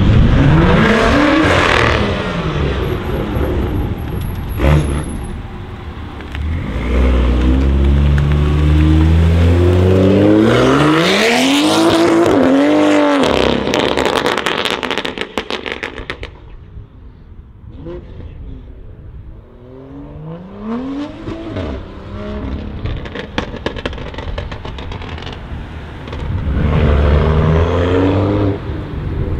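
BMW M2 (F87 LCI) turbocharged straight-six through an Armytrix catless valved exhaust, revving and accelerating away in several rising pulls. About halfway through the exhaust pops and crackles on the overrun as the throttle closes, and near the end the engine gets loud again as the car comes back past.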